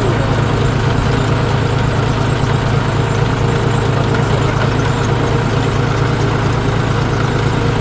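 Tractor diesel engine running steadily, a low even drone that does not change.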